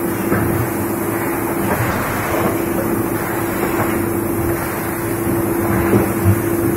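Plastic injection moulding machine running: a steady machine hum with one constant tone over mechanical noise, and two low knocks close together near the end.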